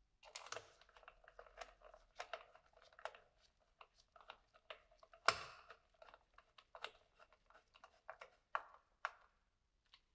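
Faint, irregular metallic clicks and ticks of a hand screwdriver turning a screw into a motorcycle exhaust's heat shield, with one louder sharp knock about five seconds in.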